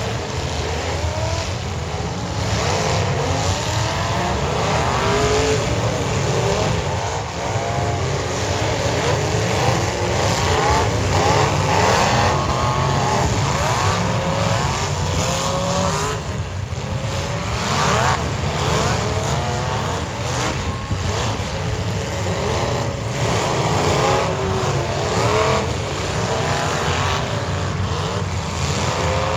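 Several demolition derby car engines revving hard, their pitch rising and falling over and over.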